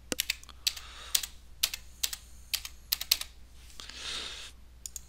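Computer keyboard keys tapped in quick, irregular strokes as a password is typed. A soft breathy hiss comes about four seconds in, followed by two last key clicks.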